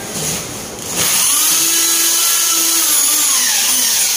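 A handheld power tool starts about a second in and runs steadily for about three seconds: a motor whine with a hissy top. Its pitch sags slightly near the end.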